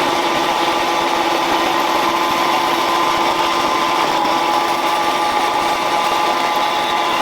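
A power saw cutting a piece of metal to length, running steadily without a break.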